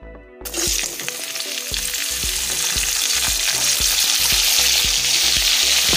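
Cut vegetables (carrot, flat beans, brinjal, pumpkin) dropped into hot oil in a steel kadai: a loud sizzle starts suddenly about half a second in and carries on steadily while they are stirred in the pan.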